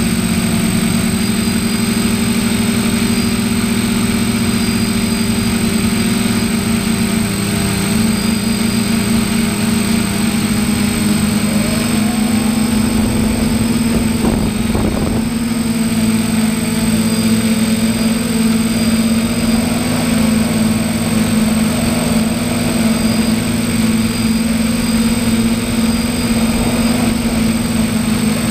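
Small multirotor drone's electric motors and propellers whirring steadily, heard up close from its onboard camera, with a brief wavering in pitch about halfway through.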